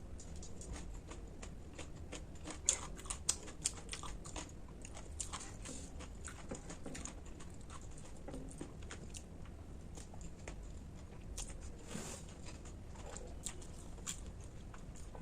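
Close-miked eating: irregular crunches, clicks and chewing of food, a few sharper bites standing out.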